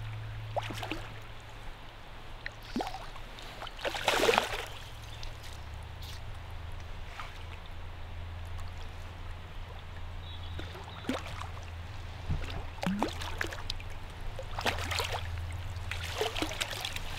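Water splashing in short bursts as a hooked trout thrashes at the surface and is scooped into a landing net, over a steady low hum. One splash comes about four seconds in and several more near the end as the fish goes into the net.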